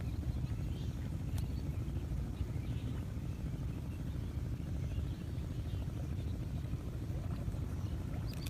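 Steady low rumble with faint, scattered high-pitched bird chirps over it.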